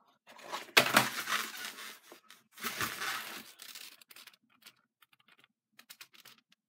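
An eyeshadow palette and its cardboard box being handled: two loud bursts of scraping and knocking, about a second in and again about two and a half seconds in, then light clicks and taps.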